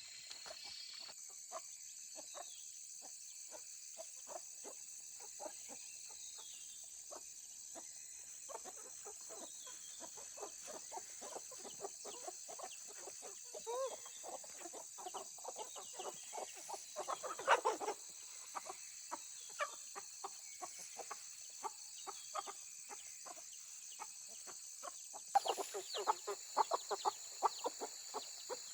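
Chickens clucking, many short calls overlapping, with louder flurries about two-thirds of the way through and again near the end.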